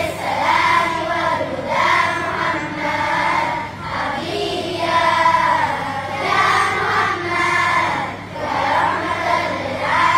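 Children's choir singing an Islamic nasheed with Arabic salawat lyrics (blessings on the Prophet Muhammad), in long sung phrases with brief breaks between them.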